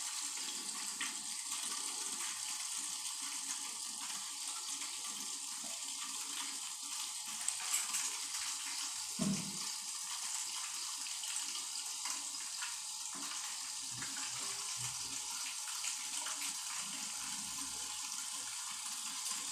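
Toilet cistern refilling after a flush: a steady hiss of water running in through the newly repaired fill valve. A faint knock about nine seconds in.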